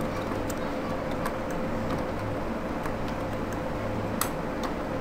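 Computer keyboard keystrokes: sharp, irregular clicks as a search phrase is typed, the loudest a little past four seconds in, over a steady low hum.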